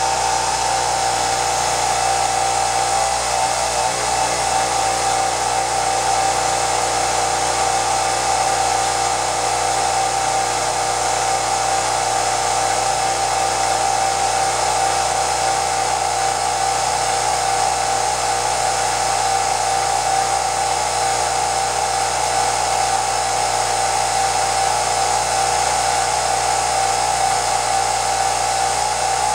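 Home-movie film projector running: a steady motor whir with a constant high-pitched whine over hiss.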